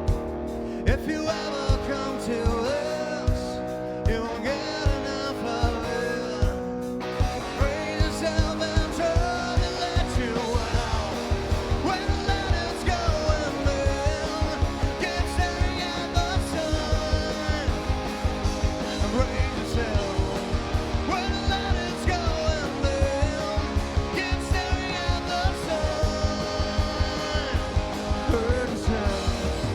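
Live rock band playing: electric guitar over bass and a steady drum beat, which fills out and drives harder a few seconds in.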